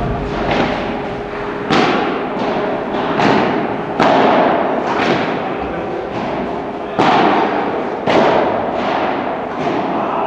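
Padel rally: a string of sharp hits of the ball on rackets and court, roughly one a second, each echoing in a large indoor hall.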